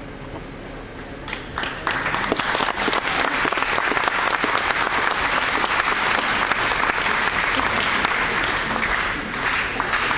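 A large audience applauding. Thick, steady clapping breaks out about a second and a half in and quickly builds to full strength.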